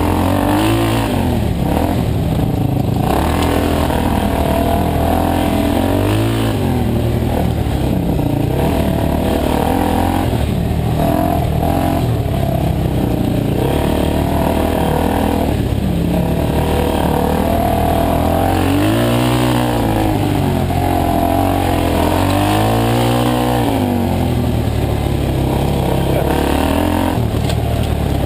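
Dirt bike engine heard from on board, revving up and down as the throttle is opened and closed along a trail, its pitch rising and falling over and over.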